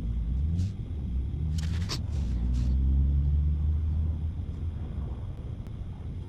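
A motor vehicle's engine passing by, growing louder to a peak about three seconds in and then fading away. A few short rustles are heard along with it about two seconds in.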